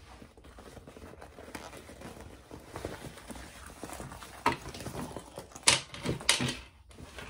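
A small vinyl and cork bag being handled and squeezed, the stiff vinyl rustling and crinkling, with a few sharper crackles in the second half.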